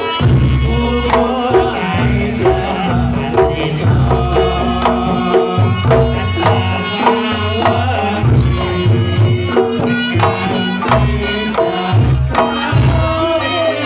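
Javanese Reog Ponorogo gamelan playing: a kendang hand drum leads with fast, dense strokes over booming low notes and ringing tones from a hanging gong and other struck bronze percussion.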